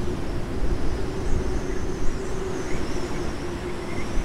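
Breeze buffeting the microphone in uneven gusts, over a steady distant engine hum.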